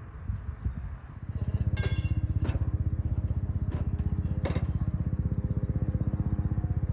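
An engine running steadily at idle with a fast, even low pulse, starting about a second in. A few sharp metallic clinks ring over it.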